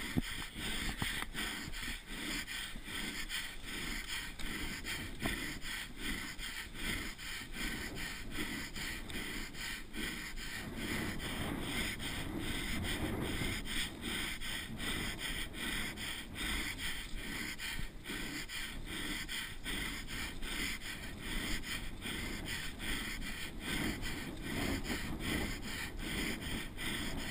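A mountain bike rider breathing hard and raggedly while racing downhill, over continuous tyre noise on a dirt trail and frequent small knocks and rattles from the bike over rough ground.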